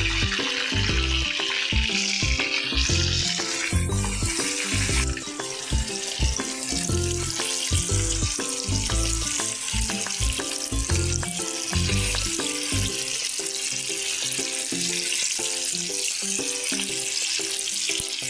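Marinated chicken pieces deep-frying in a wok of hot oil: a steady sizzle, under background music with a bass line.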